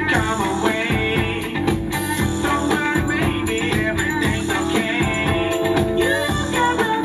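Funk music with a singing voice over a steady beat.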